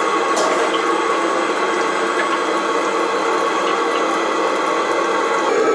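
Meat-filled yeast-dough pies (belyashi) frying in oil in a wok: a steady, dense crackling sizzle, with a steady hum underneath.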